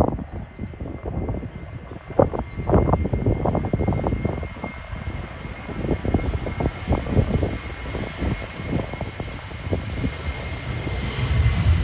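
Boeing 737-700 jet engines at takeoff thrust during the takeoff roll, heard from inside the cabin: a steady engine whine over a loud rumble, with the cabin jolting and rattling over the runway. The jolts thin out near the end as the jet lifts off.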